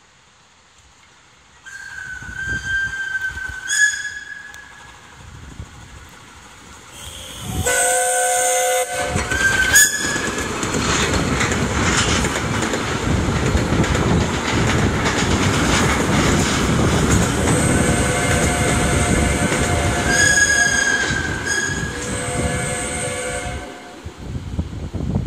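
A 381 mm gauge Krauss Liliput steam locomotive approaching and passing with its train, blowing its steam whistle several times. A high whistle blast sounds about two seconds in and again near ten and twenty seconds, along with lower multi-note whistle blasts. From about ten seconds the train runs loudly past, with steam exhaust and wheels clattering on the rails.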